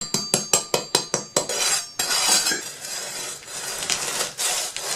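Cutlery tapping on dishware: a quick run of sharp clinks, about five a second with a faint ringing, then denser clattering and scraping for the rest.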